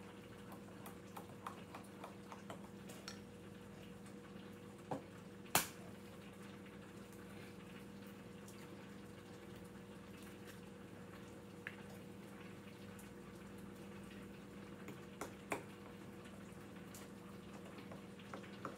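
Light, scattered clicks and taps of utensils and dishes over a faint steady hum, with one sharper click about five and a half seconds in.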